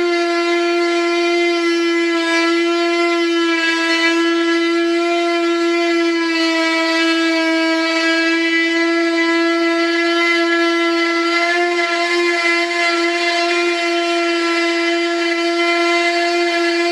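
Small corded rotary cutter running with a steady high whine, one held pitch with many overtones, as it trims cured fibreglass along the edge of a mould.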